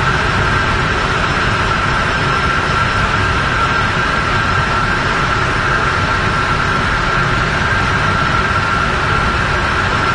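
Industrial machinery on an offshore platform running steadily: a constant rumble and hiss with an unchanging high whine through it.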